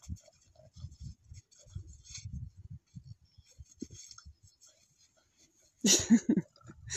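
Footsteps crunching in packed snow, an irregular run of soft thuds with a scratchy crackle. About six seconds in, a short loud voice-like sound cuts in.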